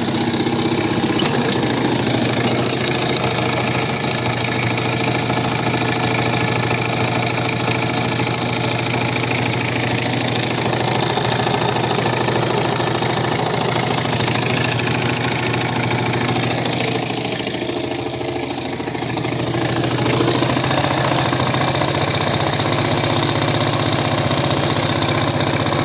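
Viper Active motorbike engine idling in neutral with a knock in it, the cause of which the owner does not know. The running dips slightly about two-thirds of the way through, then picks up again a little louder.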